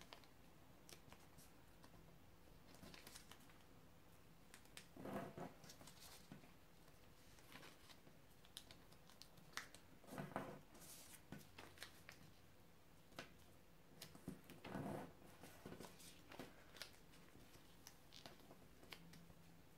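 Faint sounds of a small square of notepaper being folded by hand, its corners brought to the centre and creased: brief rustles and crinkles every few seconds over quiet room tone.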